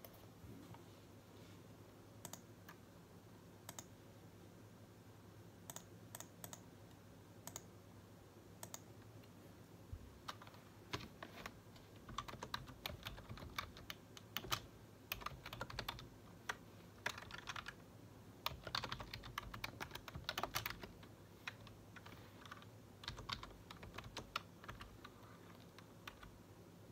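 Typing on a computer keyboard: a few scattered clicks over the first ten seconds, then quick runs of keystrokes in bursts, with a faint steady low hum underneath.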